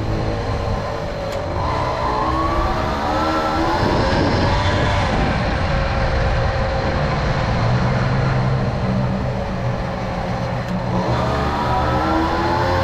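Tomos Silver Bullet moped's small two-stroke engine running under way. Its pitch climbs as it accelerates about two seconds in and again near the end, and holds steady in between.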